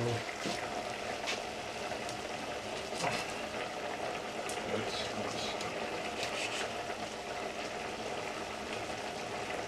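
Chef's knife slicing seared lamb fillet on a wooden cutting board, with a few short knocks of the blade on the board, over a steady simmering hiss from a pot of broth on the electric hob.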